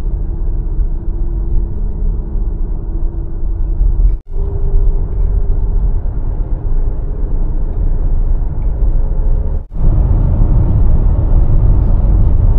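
Road and engine noise inside a Subaru SUV's cabin while driving, a steady low rumble that drops out briefly twice.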